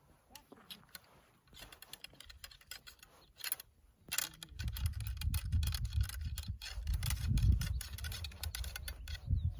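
Cleaning rod rattling and scraping in the bore of a black-powder Peabody rifle, swabbing out fouling between shots: a quick run of small clicks and scrapes. About halfway through, a low, uneven rumble sets in and becomes the loudest sound.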